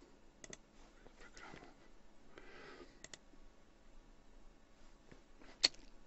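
Computer mouse clicking: two quick double clicks, then one louder single click near the end, against a faint room background.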